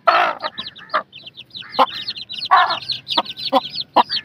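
A brood of small chicks peeping rapidly and without pause, with their mother hen clucking louder and harsher twice: once right at the start and again about two and a half seconds in.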